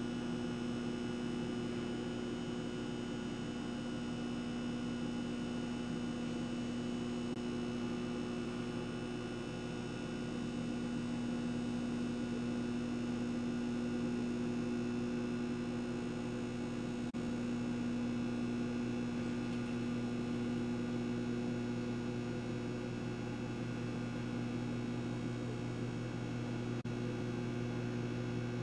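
A steady electrical hum: several low tones held level without change, over a faint hiss.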